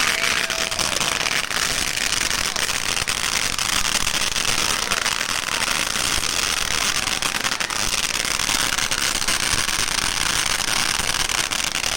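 Fireworks crackling without pause: a dense, steady stream of small pops and crackles.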